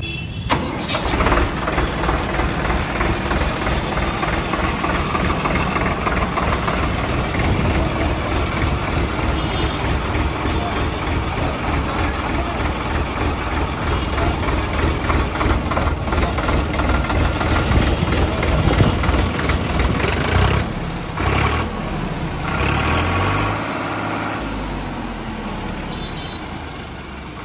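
Tractor diesel engine running with a rapid, even firing beat, then changing with a few surges about twenty seconds in.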